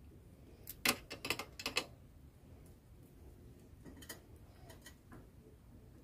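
A bicycle pedal being screwed into the crank arm by hand, making light clicks: a quick run of them about a second in, then a few scattered clicks later.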